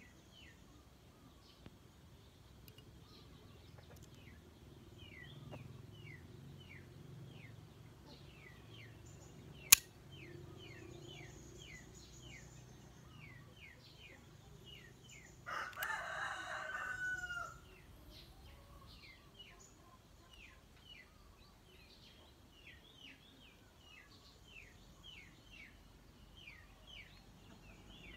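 A rooster crows once, for about two seconds, in the middle, over continual short chirps of small birds. A single sharp click, the loudest sound, comes a few seconds before the crow.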